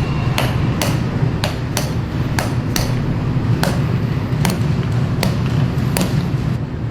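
A small motor switches on and runs with a steady low buzz, with sharp knocks about twice a second, typical of a handheld percussive tool worked over the body.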